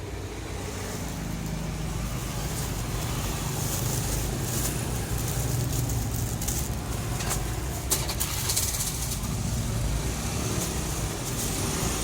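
A motor vehicle's engine running nearby: a steady low rumble, with scattered light rustles and clicks and a short sharp click about eight seconds in.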